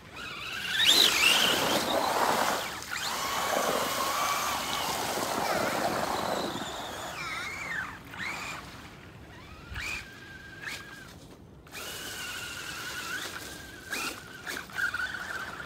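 Electric motors of radio-controlled FTX Sidewinder crawler trucks whining as the trucks drive through deep puddle water. For the first six seconds or so the whine rises and falls over loud splashing; later a steadier high whine carries on.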